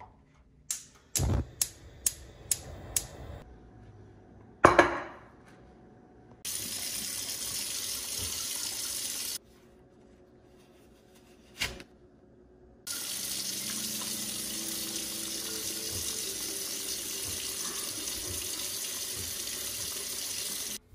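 Gas range igniter clicking rapidly as the burner knob is turned, followed by one loud burst. Then a kitchen faucet running steadily, twice, with a short pause and a single knock between the runs.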